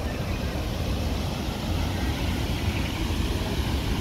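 Steady outdoor ambient noise: a low rumble under an even hiss, with no distinct events.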